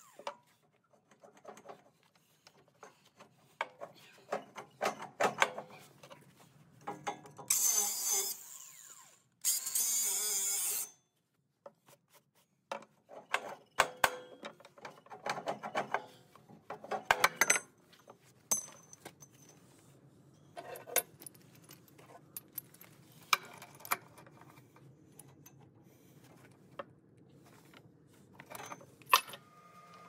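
Steel parts and tools clinking and knocking as a mounting bracket is handled and fitted to the dozer's frame. A hand-held grinder runs in two short passes about eight and ten seconds in, the loudest sound.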